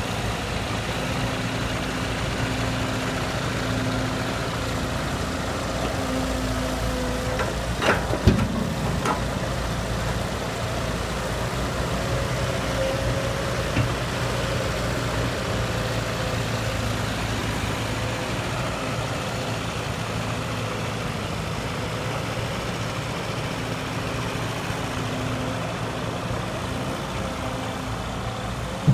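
Heavy diesel machinery engine running steadily at low revs while an excavator loads soil into a dump truck, with a couple of sharp knocks about eight seconds in.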